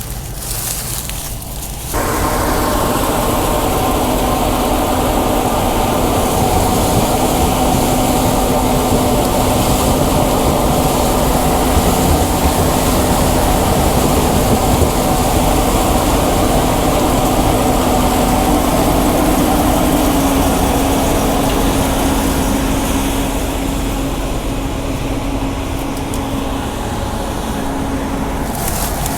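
Combine harvester running steadily while harvesting corn, a constant mechanical hum with a steady tone. It gets suddenly louder about two seconds in.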